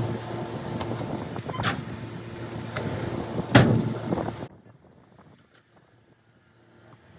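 A vehicle running, with two sharp bangs about two seconds apart. The noise then cuts off suddenly to near quiet.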